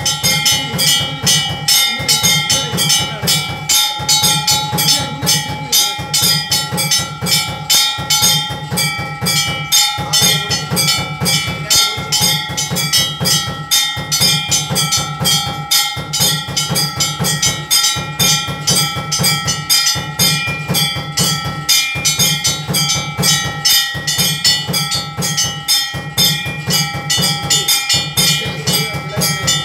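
Ceremonial music: fast, continuous percussion strikes with steady ringing tones held over them and a deeper beat about every two seconds.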